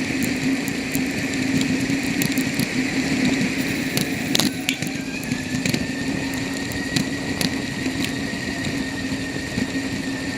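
Bicycle in motion: mechanical rattling and scattered sharp clicks over a steady hum.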